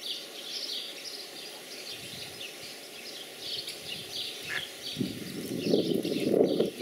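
Ducklings peeping: many short, high chirps in quick succession. A louder, low rushing noise comes in about five seconds in and is the loudest part.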